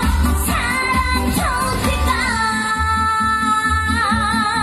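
A woman singing a Korean trot song into a microphone over amplified backing music with a steady beat. About two seconds in she holds a long note with vibrato.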